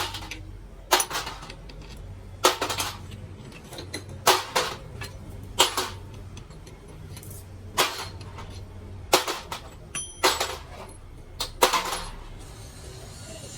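Repeated hammer blows on the metal parts of a bus gearbox, about nine strikes spaced one to two seconds apart, each ringing briefly, over a steady low hum.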